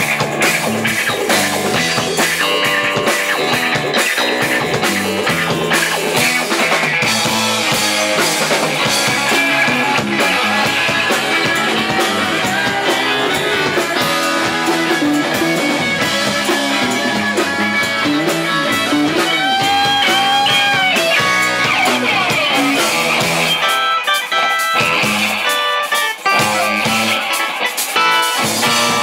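Live instrumental band playing: electric guitars to the fore over a drum kit and electric keyboard, without vocals.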